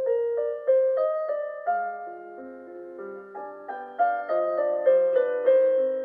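Background piano music: a calm melody of struck notes and chords, several notes a second, each fading after it is played.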